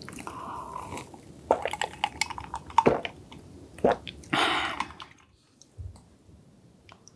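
Close-miked mouth sounds of drinking from a glass mug: gulping and swallowing with several sharp wet clicks. About two-thirds of the way through comes a short breathy rush, and then the sound drops to a low level.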